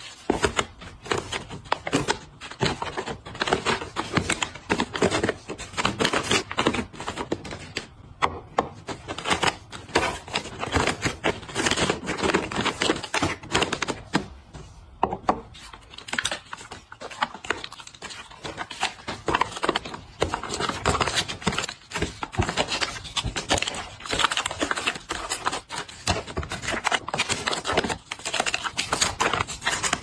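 Plastic squeeze pouches being laid one after another into a plastic storage bin: a continuous run of crinkling packaging and small clicks and clacks as the plastic spout caps knock against each other and the bin.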